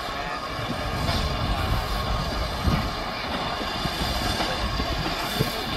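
LMS Class 3F 'Jinty' 0-6-0 tank engine moving slowly with its passenger coaches: a steady rumble of the train on the rails, with a couple of short knocks.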